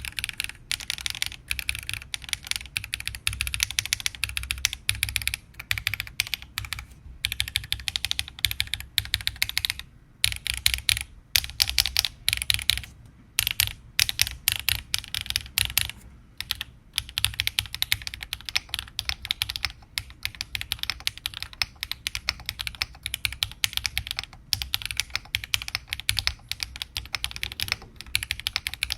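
Weikav Nut65 mechanical keyboard, 1.6 mm PCB built with no foam and PCB gaskets, being typed on in a fast run of clacky keystrokes, with a few brief pauses.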